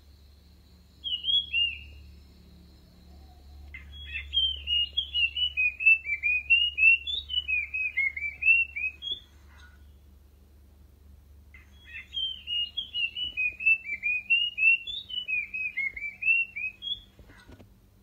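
Song of the ground babbler that Thai bird-keepers call nok krachap din ok lai or nok krong din (the puff-throated babbler): a short two-note call about a second in, then two long phrases of quick, varied whistled notes, each about five seconds, with a pause between.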